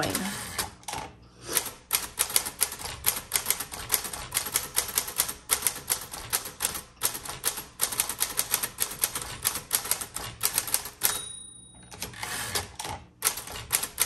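1938 Corona Sterling manual typewriter being typed on: a quick run of keystrokes, several a second, the type bars snapping against the platen. The typing breaks off for about a second near the end, then starts again.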